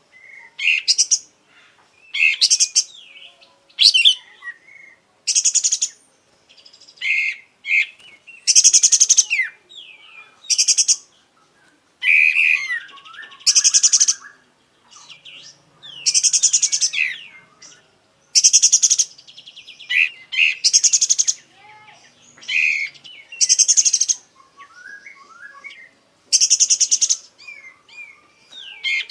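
Sooty-headed bulbul (kapas tembak) singing at full volume and running through its repertoire. It gives a rapid series of short, high, rattling bursts roughly every one to two seconds, with quick whistled notes between them.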